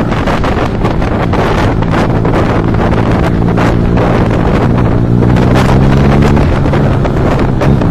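Motorcycle engine running at road speed, its note climbing as the bike accelerates about halfway through, with wind buffeting the microphone.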